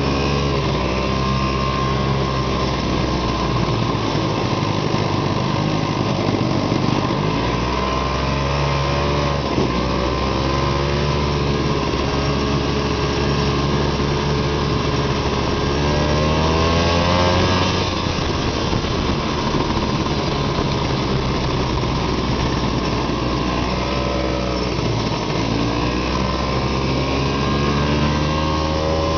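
Arctic Cat Panther snowmobile engine running under way, its pitch rising and falling with the throttle in several surges. The strongest rise comes about two-thirds of the way through.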